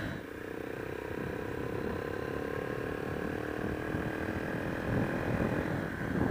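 Honda XR125's single-cylinder four-stroke engine running at a steady pitch on the move, under a rushing of wind and road noise that grows a little louder about five seconds in.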